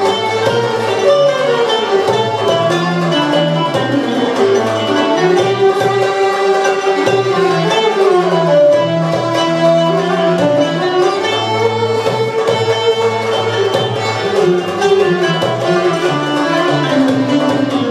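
Turkish art music ensemble of violin, cello and kanun playing a continuous instrumental passage of a song in the Kürdilihicazkâr makam: a bowed melody over plucked strings and a moving bass line.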